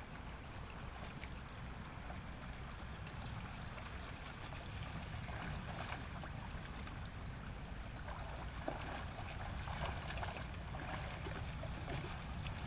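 Dalmatian and German Shepherd splashing as they wade and swim through a shallow stream, the splashing growing louder in the second half, over a steady low rumble.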